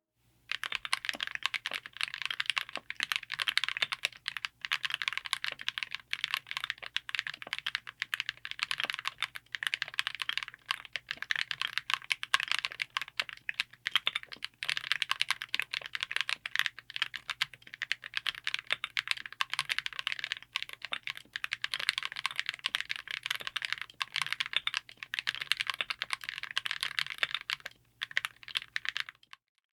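Fast, continuous typing on a mechanical keyboard with Akko V5 Creamy Blue Pro tactile switches, mounted on a DZ60 PCB with an FR4 plate in an aluminium Tofu60 case: a dense run of keystroke clacks broken by a few short pauses.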